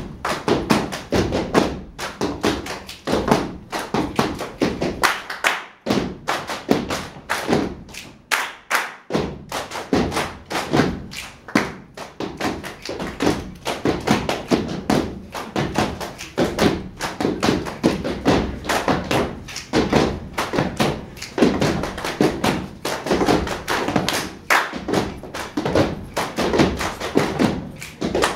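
A group performing body percussion together: hand claps, slaps and thumps, many strikes a second, in a dense samba rhythm.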